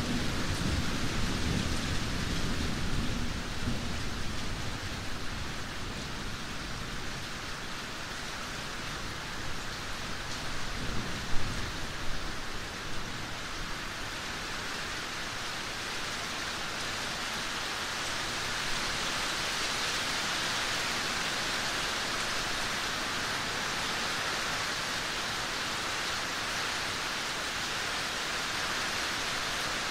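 Steady rain with low rolls of thunder, once at the start and again about ten seconds in, the second with a sharp crack. Afterwards only the even hiss of the rain goes on.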